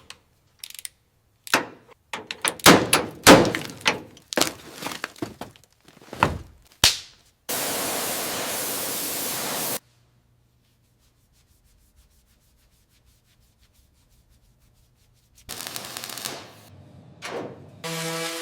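Restoration work on a car: a run of sharp knocks and clanks, then a steady hiss for about two seconds. After a long silent gap there is more scraping near the end.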